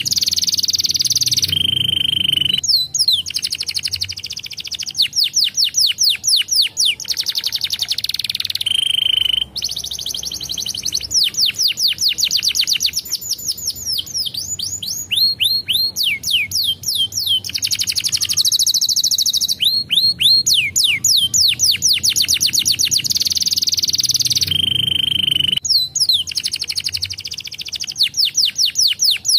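Domestic canary singing a long song of fast trills, each made of rapidly repeated falling whistled notes, with a few short held notes and brief pauses between phrases.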